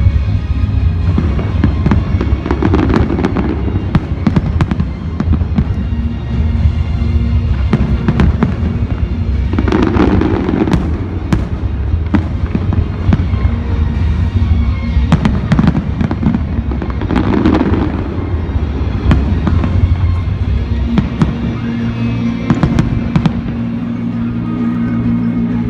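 Fireworks display: a continuous run of bangs and crackling from aerial shells, with music playing underneath.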